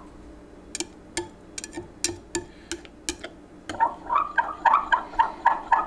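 Metal spoon stirring liquid plastisol in a glass measuring cup: at first it clicks and taps against the glass at irregular intervals, then from about four seconds in it scrapes round the cup in a quick, even rhythm, a squeak with each stroke, about three or four a second.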